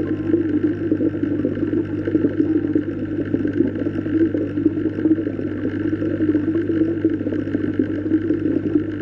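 A steady, low droning underwater ambience: a constant hum under a fluttering rumble, with no breaks or distinct events.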